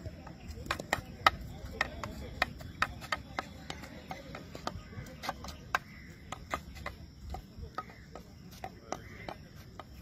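Field hockey stick tapping the ball while dribbling: sharp clicks, two or three a second at uneven spacing.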